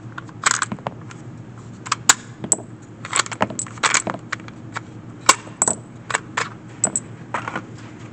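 Irregular sharp metallic clicks and clatter from handling a handgun and its magazines, swapping and loading them.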